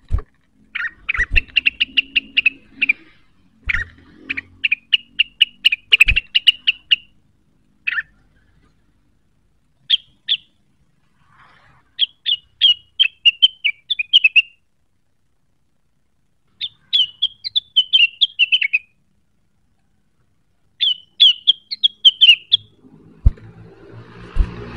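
A rengganis songbird singing in rapid chattering trills, each phrase a quick run of short high notes lasting one to two seconds, with pauses between phrases. A few sharp clicks come in the first six seconds, and a louder noisy rush starts near the end.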